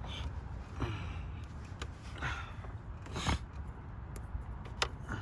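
Plastic motor-oil bottles being handled and opened: a few short scraping, rustling sounds about a second apart and a sharp click near the end.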